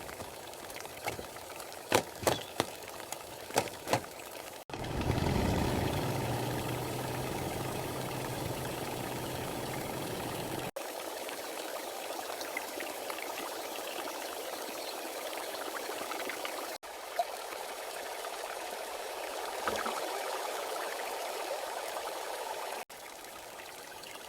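Rain and running-water sounds in a run of cut-together shots, with a handful of sharp knocks in the first few seconds and a louder stretch with a low rumble about five seconds in.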